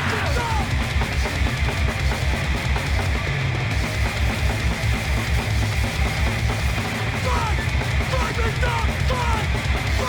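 Fast hardcore punk played from a 7-inch vinyl record: a rapid, driving drum beat under loud distorted guitars.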